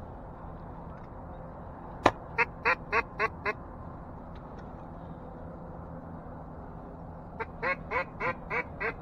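A sharp click, then loud mallard-style quacks in two quick runs at about three to four quacks a second: five quacks about two seconds in, and a longer run starting near the end.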